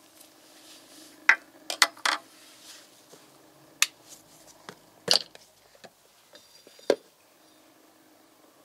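Steel sample holder and parts of an oil-film wear-test machine being handled: sharp metallic clicks and clinks, about eight spread through, over a faint steady hum.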